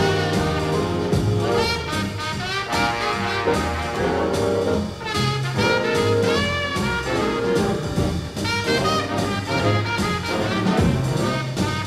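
Background jazz music with brass instruments playing a swing-style tune.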